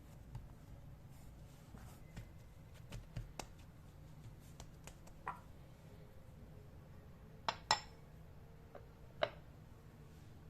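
Kitchen utensils and dishes tapping and clinking: scattered light taps, one short ringing clink about halfway, then three sharper clinks in the last third.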